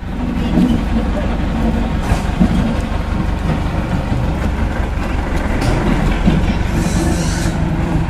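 Three-wheel road roller's diesel engine running steadily with a low, even throb as the roller drives slowly along the road.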